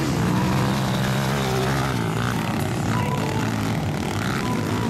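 Motocross bike engines running, a steady drone that shifts slightly in pitch.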